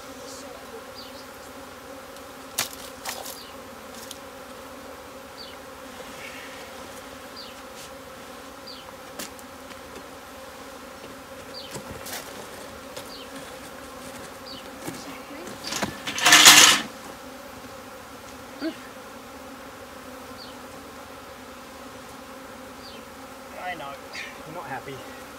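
A swarm of honey bees buzzing, a steady dense hum. There are a few sharp knocks, and about two-thirds of the way in a loud rush of noise lasting about a second.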